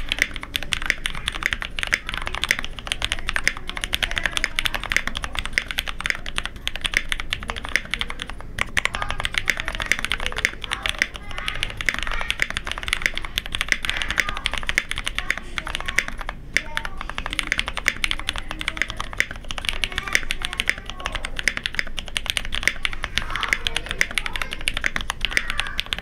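Fast, continuous typing on a KBDfans D65 mechanical keyboard fitted with Cherry MX Black Hyperglide linear switches: a dense stream of keystrokes, broken by two brief pauses about a third and two-thirds of the way through.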